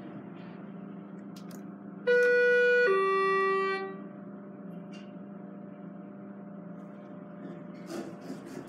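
Schindler elevator's two-tone chime, a higher note followed by a lower one that fades, the falling two-stroke signal for travel in the down direction. A steady low hum runs underneath.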